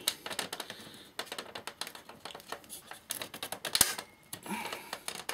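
Irregular light clicks and taps of plastic and metal as the front panel of a Sansui AU-X111 amplifier is worked loose from its retaining clips, with one sharper knock just before four seconds in.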